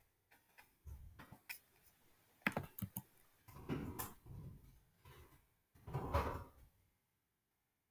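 Faint computer keyboard keystrokes and mouse clicks, with a cluster of sharp clicks about two to three seconds in and a few duller thuds between.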